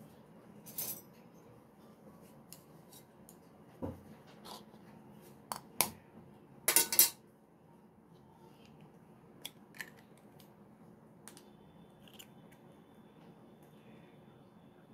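Eggs being cracked open by hand: scattered sharp taps and shell cracks, the loudest a quick cluster about seven seconds in, over a faint room hum.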